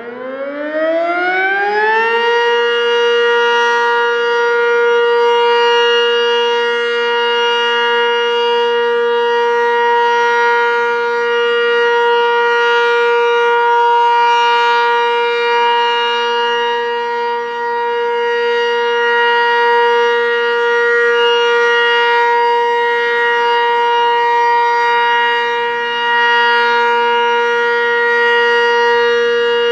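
Sentry 20V2T two-tone electromechanical siren winding up: its pitch rises for the first two seconds or so, then it sounds a loud, steady chord at full speed.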